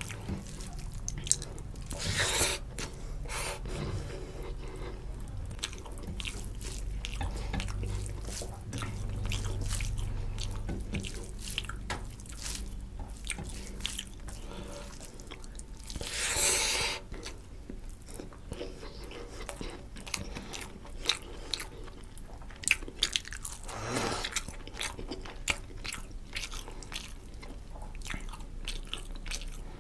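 Close-miked eating of rice and fish curry by hand: wet chewing and lip-smacking clicks throughout, with fingers squishing rice in gravy. Three louder, longer noisy swells come about two, sixteen and twenty-four seconds in.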